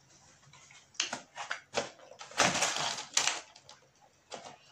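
Polystyrene takeaway box being handled and set down: a few sharp clicks, then a short scraping rustle of the foam container.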